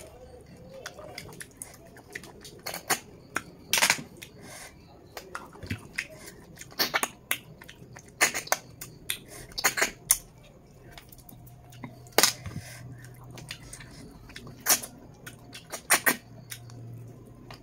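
Person sucking cooked snails out of their shells and eating them: a string of sharp slurps and clicks, one every second or two, over a faint low hum.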